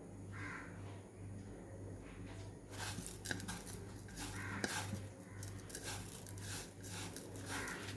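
Dry papad (pappadam) being broken up by hand: irregular crisp crackling and crunching with a few sharp snaps, starting about three seconds in. A low pulsing hum runs underneath.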